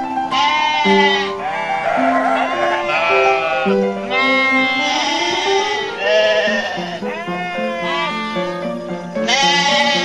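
Sheep bleating again and again, about eight wavering cries in a row, over background music with steady held notes.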